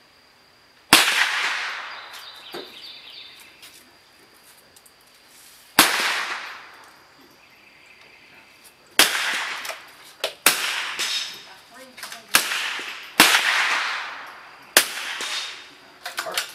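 Several .22 LR smallbore rifles firing one shot at a time along the line: about nine or ten sharp cracks at irregular intervals, each trailing off in a short echo under the firing-line roof.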